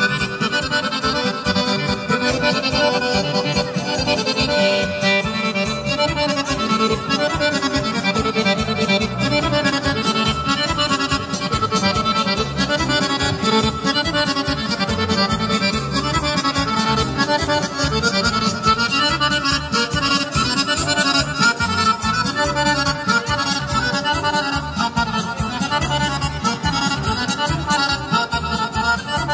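Accordion-led folk music playing continuously with a steady beat.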